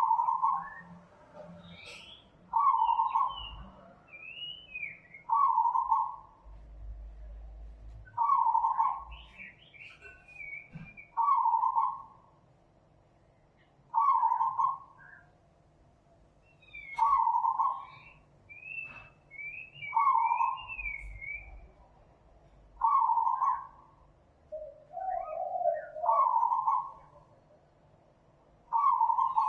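Birds calling: one bird gives a short hooting note repeated about every three seconds, while others chirp and twitter higher between the hoots.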